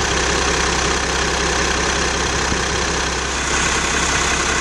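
Peterbilt 335 truck's diesel engine idling steadily, heard close up in the open engine bay.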